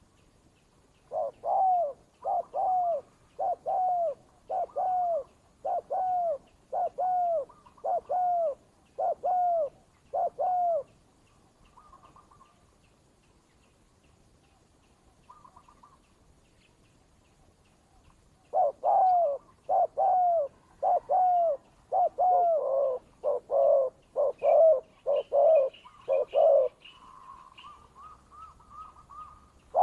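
Doves cooing in two long runs of evenly repeated coos, about nine in each, with a quiet gap between: the calls of a tethered decoy dove and the wild dove it is luring, face to face. Faint high chirps run underneath, and a short trill comes near the end.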